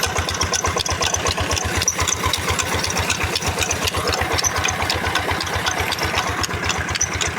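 Single-cylinder diesel "Peter" engine driving a water pump, running steadily with an even, fast thudding beat as it pumps water for a rice seedling nursery.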